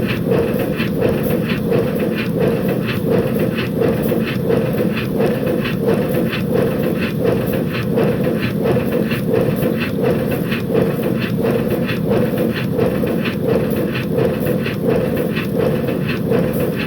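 5-inch gauge BR Class 9F model locomotive running on a rolling road, its exhaust beating steadily at about three beats a second over a constant hiss.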